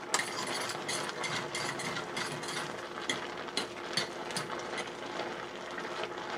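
A metal fork stirring angel hair pasta in a stainless steel pot of boiling broth, clicking and scraping against the pot's sides and bottom in quick, irregular taps.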